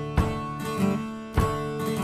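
Background music of a strummed acoustic guitar: two strong strums a little over a second apart, the chords ringing on between them.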